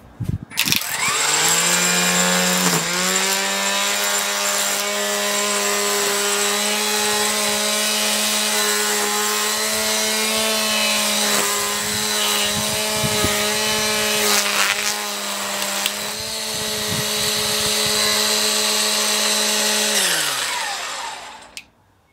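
AEG 18V brushless line trimmer motor and spinning head whirring up to speed, with a slight step up in pitch about three seconds in. It runs at a steady whine, then winds down and stops near the end.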